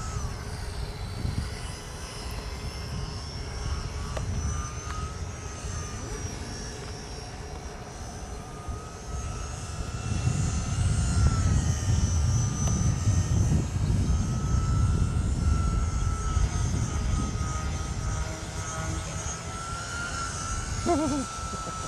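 Parkzone Typhoon 2 3D radio-controlled plane flying aerobatics overhead, its motor and propeller giving a steady high whine that wavers and glides in pitch as it manoeuvres. Beneath it is a low rumble, heaviest around the middle.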